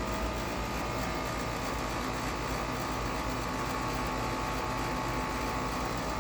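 Carrier Comfort series HVAC unit running steadily: a continuous hum and fan noise with a held whine on top.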